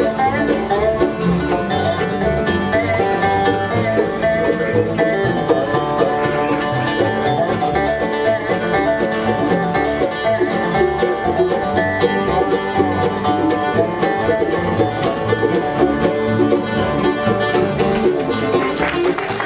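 Live acoustic bluegrass band playing an instrumental passage, the banjo to the fore over guitar and fiddle.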